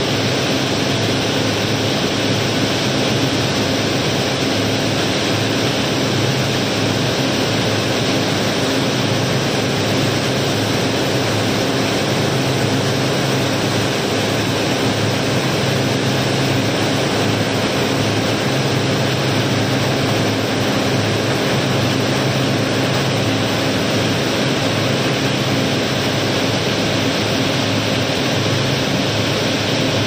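Rounded gravel pouring steadily out of a barge hold through an unloading chute: a continuous rushing rattle of stones, with a low steady hum underneath.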